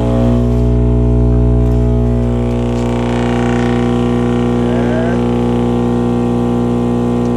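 PSI Platform 3 18-inch subwoofer wired straight to household mains, its cone driven by the wall current and giving a loud, steady buzzing hum that swells a little in the first two seconds. The subwoofer is being run to destruction, and its voice coil is already giving off a burning smell.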